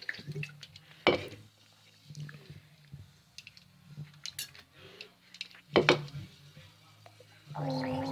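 Cane soda being gulped and swallowed, with two sharp loud sounds, about a second in and just before six seconds. A short, steady-pitched burp comes near the end.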